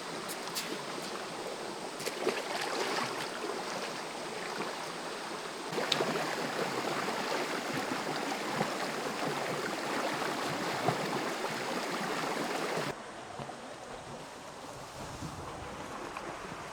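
Flowing stream water: a steady rush with a few small clicks over it. It jumps abruptly louder about six seconds in and drops back about thirteen seconds in, where shots are cut together.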